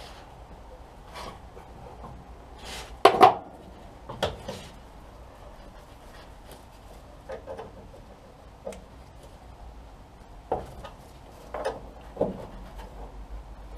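Spanner clinking and scraping against a stubborn, overtightened shock absorber mounting nut as it is worked loose a little at a time: scattered light clicks with a few sharper clanks, the loudest a pair about three seconds in and several more near the end.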